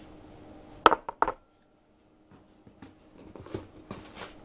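Two sharp knocks about a second in as a menorah is set down on a table, followed by softer rustling and handling of items in a cardboard box.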